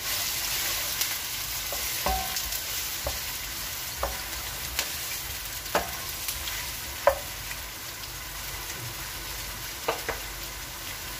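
Diced red onions sizzling as they fry in red palm oil, stirred with a wooden spoon that knocks against the pan several times.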